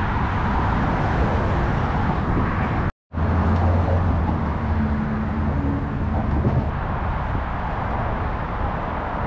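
City street traffic noise: cars and other vehicles running, with a steady low engine hum after about three seconds.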